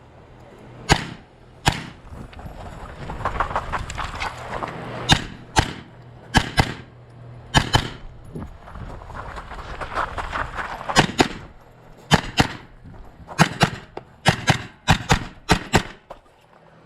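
Gunshots from a competitor's timed string of fire: about eighteen shots at uneven spacing, several fired in quick pairs, coming faster in the last few seconds.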